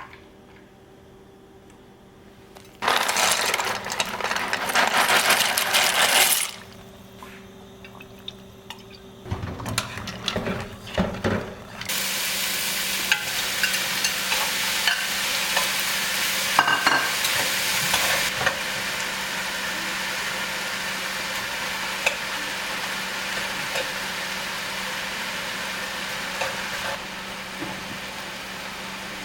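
Cooking sounds: a steady sizzle of food frying in a pan from about twelve seconds in, with occasional utensil clicks and clinks, after a loud hissing spell and some clatter of cookware earlier on.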